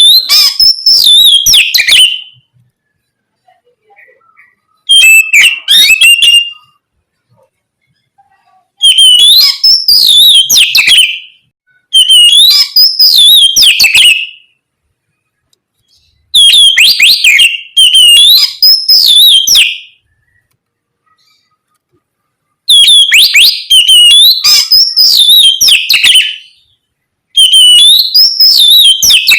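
Oriental magpie-robin (kacer) singing its loud, open 'ngeplong' song: rapid, varied whistled phrases rising and falling in pitch, delivered in bursts of two to three seconds with short pauses between, about seven phrases in all.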